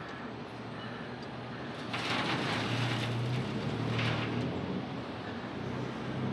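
Street traffic noise with a low engine hum, and a vehicle passing close for about two seconds, starting about two seconds in.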